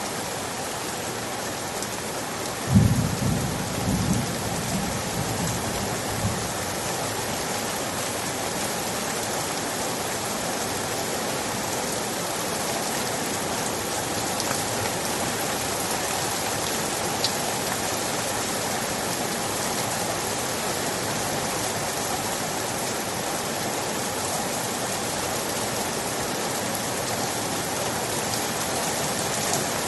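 Steady heavy rain falling. About three seconds in, a low rumble of thunder breaks in, the loudest sound here, and dies away over the next few seconds.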